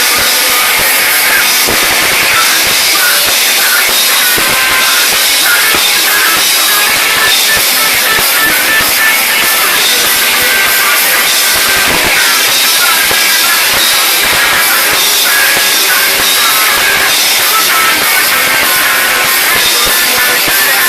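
Rock band playing live: drum kit and electric guitars, loud and unbroken, recorded with very little bass.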